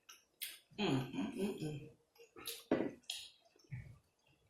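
Close-miked eating at the table: a low hummed "mm" about a second in, then a few short sharp mouth smacks and soft knocks as chicken strips are chewed and tasted.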